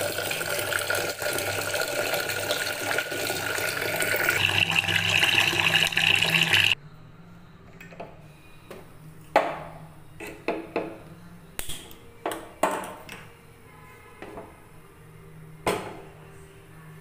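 A stream of water pouring into an aluminium pressure cooker over moong dal, for about seven seconds, the sound turning brighter near the end as the water level rises; it stops suddenly. After that come scattered sharp clicks and knocks.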